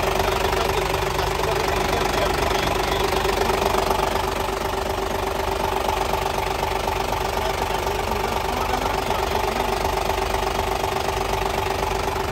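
Isuzu 6SD1 inline-six diesel engine idling steadily, heard close up in the open engine bay, with rapid, even diesel clatter over a steady hum.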